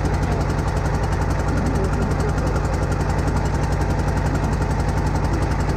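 Small wooden fishing boat's engine running steadily with a fast, even beat.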